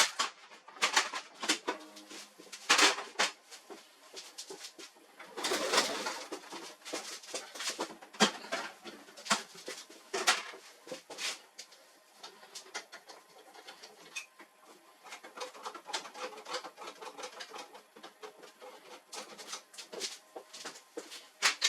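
Irregular clicks, knocks and rattles of plastic and metal printer parts being handled and worked with tools during disassembly of a laser printer.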